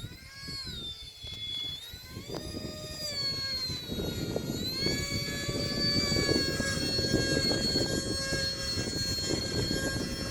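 Electric ducted fans of a small UMX A-10 model jet whining in flight, the pitch gliding up and down a few times before holding steady for the second half. Wind rumbles on the microphone underneath.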